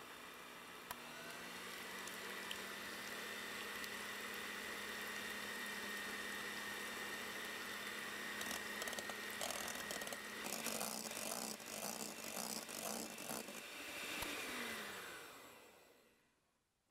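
Electric hand mixer whipping egg whites into meringue: a steady motor whir that rises slightly in pitch about a second in, joined by an irregular rattle from about halfway. Near the end the motor winds down with falling pitch and fades out.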